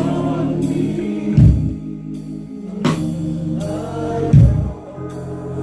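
Live gospel music: singing over held chords, with a drum-kit hit about every second and a half.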